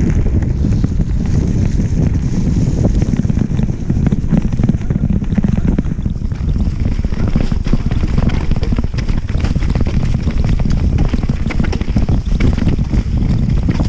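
Wind buffeting the microphone of a mountain bike descending a dirt forest trail at speed, with the tyres and bike rattling over roots and stones as a stream of knocks and clicks that grows busier about halfway through.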